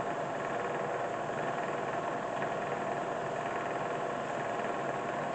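Bridgeport Series I vertical milling machine running under power with its spindle in high range: a steady, even hum with a constant whine.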